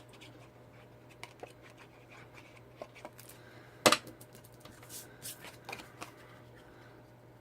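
Cardstock pieces being handled and pressed down, with soft rustles and small taps, and one sharp knock about four seconds in as the glue is put down on the table.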